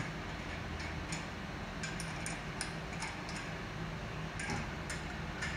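Lug nuts being threaded by hand onto a Volkswagen GTI's wheel studs: light, irregular metallic clicks and ticks over a faint steady hum.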